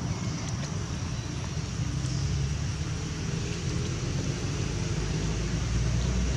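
Steady outdoor background rumble and hiss with no distinct event in it.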